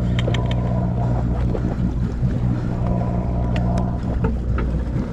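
Sportfishing boat's engine running with a steady low drone, with a few light clicks and knocks over it.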